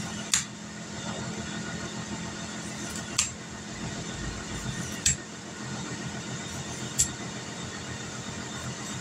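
Ninja Foodi Grill's fan running loudly and steadily as the grill preheats, a constant hum with a low tone; it is louder than normal, which the owner fears means the appliance is starting to fail. Four short, sharp clicks about two seconds apart come from a cucumber being peeled.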